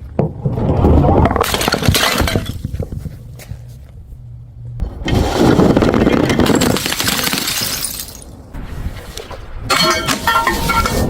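Glass bottles smashing: three long crashes of shattering glass. The last ends in ringing clinks of glass pieces.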